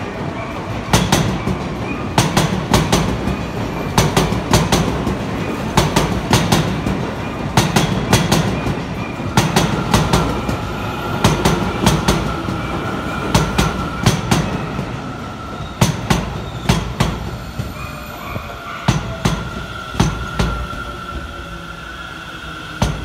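Seibu 30000 series electric commuter train rolling in to stop at the station, its wheels clicking over rail joints in repeated pairs above a low rumble. A thin, steady high squeal joins about ten seconds in.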